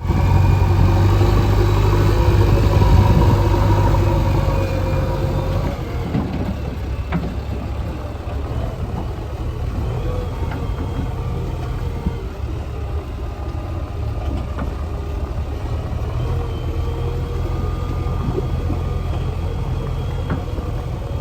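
Diesel engine of a JCB 3DX backhoe loader running at work, louder and higher-revving for the first five seconds or so, then settling to a steadier, lower run with a few faint knocks.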